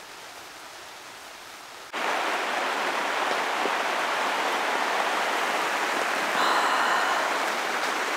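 Steady rain hiss, faint for about two seconds, then much louder and fuller from a sudden jump.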